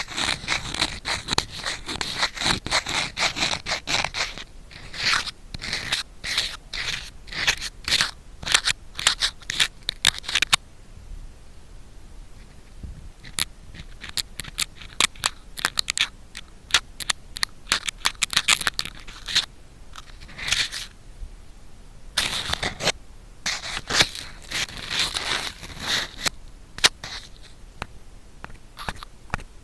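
Bamboo ear pick scratching and scraping in a 3D-audio microphone's ear, a crackly run of quick strokes in bursts, with a quieter pause about eleven to thirteen seconds in.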